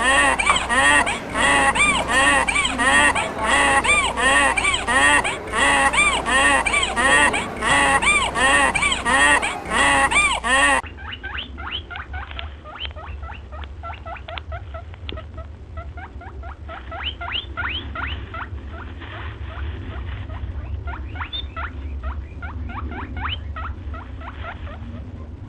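Geese honking over and over, about three calls a second. About eleven seconds in it cuts to rodents giving rapid high squeaks over a low hum.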